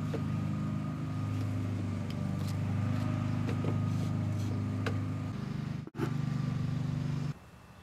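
A steady low motor or engine hum runs under a few light knocks as PVC pipe is handled, then cuts off suddenly near the end.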